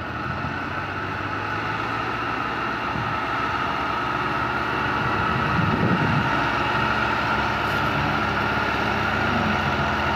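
Massey Ferguson tractor diesel engines running hard under heavy load as one tractor pushes the other's loaded earth trailer; a steady engine drone that grows gradually louder.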